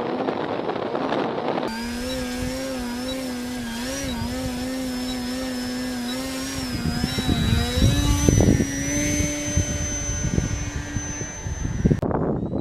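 Engine of an EXTREME radio-controlled model airplane in flight: a steady buzzing tone that wavers slightly in pitch and steps up a little about seven seconds in. Gusts of wind buffet the microphone in the second half.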